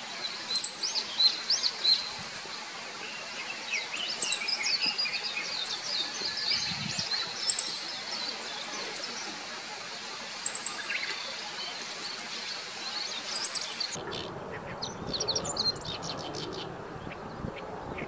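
Meadow bunting giving its call notes: high, thin 'chi-chi-chit' groups of two to four quick notes, repeated about every second and a half.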